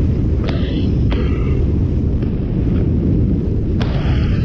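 Loud, steady wind rushing over the camera's microphone in tandem paragliding flight, with a few short clicks over it.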